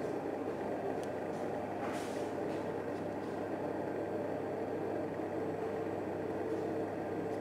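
Steady low mechanical drone with a constant hum, with a faint click about a second in and a brief hiss about two seconds in.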